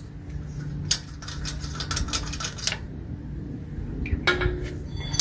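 Light metallic clicks and clinks of lug nuts being turned off a car wheel by hand and handled among loose sockets on the floor, in a quick run of clinks and then a shorter second run near the end.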